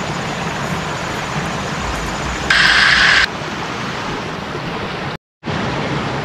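Shallow forest stream running over stones below a small cascade: a steady rush of water. About two and a half seconds in, a louder hiss lasts under a second, and near the end the sound drops out for a moment.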